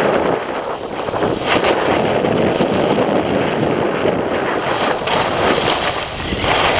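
Steady rushing noise of skiing downhill: wind buffeting the camera's microphone and skis sliding over packed snow.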